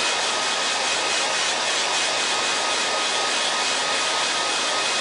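Handheld hair dryer blowing steadily at its higher setting, a constant rush of air with a faint steady whine, drying freshly applied chalk paste on a wooden cutout.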